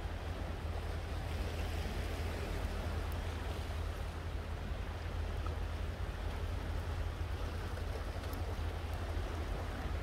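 Sea water washing steadily over and around shore rocks, a continuous even wash with no distinct wave breaks, under a low rumble of wind on the microphone.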